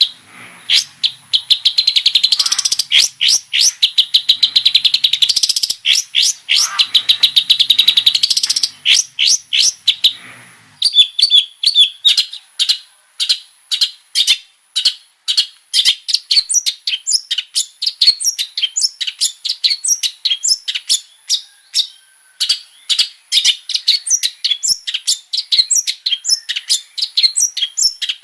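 Long-tailed shrike (cendet) singing loudly in a fast run of sharp, high chattering notes. The notes run almost together for the first half, then come as separate notes at about three or four a second.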